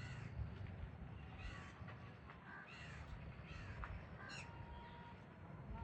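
A bird giving short, harsh, caw-like calls, repeated roughly once a second over a low steady rumble.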